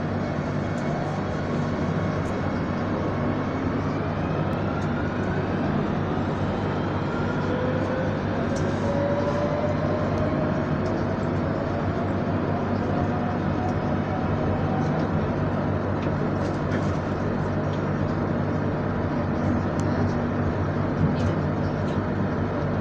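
Madrid Metro Line 2 train running through a tunnel, heard from inside the car: a steady rumble of wheels on rail, with the traction motors' whine rising in pitch as the train picks up speed. A few sharp clicks come near the end.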